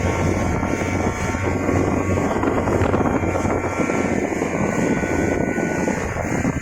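Speedboat engine running steadily, with wind buffeting the microphone.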